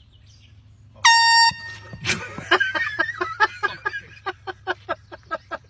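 A short blast of a handheld air horn about a second in, a steady piercing tone lasting about half a second. Right after it, a person's voice cries out, then breaks into rapid repeated vocal bursts, about four a second.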